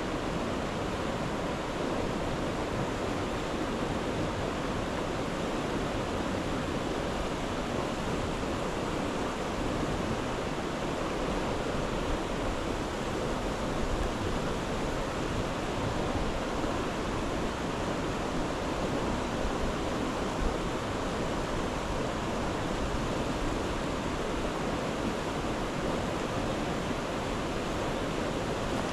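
Creek rapids rushing in a steady, unbroken wash of water.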